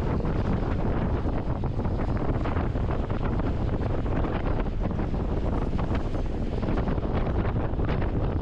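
Steady wind buffeting the microphone: a constant rushing noise with a heavy low rumble that flutters quickly in strength.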